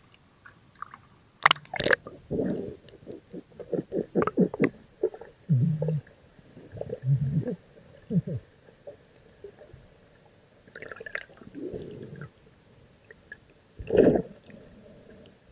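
Muffled underwater sloshing and bubbling gurgles picked up by a submerged camera, in irregular bursts, with one loud surge near the end.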